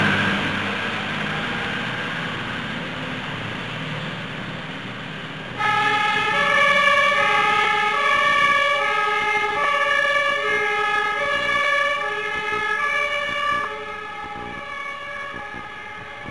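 Iveco fire ladder truck pulling away, its engine noise fading. About five and a half seconds in, its two-tone siren starts, alternating between a high and a low tone. The siren drops in level about fourteen seconds in and carries on more faintly as the truck moves off.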